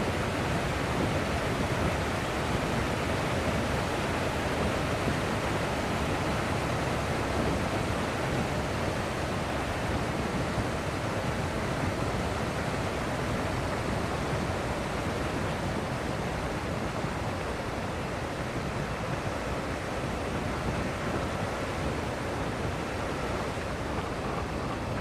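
Steady rushing noise of a vehicle driving on wet beach sand, picked up by a camera mounted on the outside of the vehicle: wind over the microphone mixed with tyre and running noise, easing slightly in the second half.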